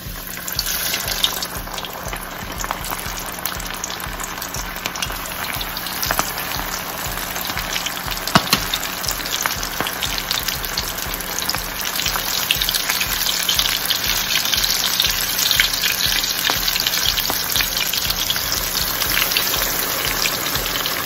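Flour-dredged chicken pieces deep-frying in hot oil, a dense sizzle and crackle. It starts as the first piece goes in and grows gradually louder as more pieces are added.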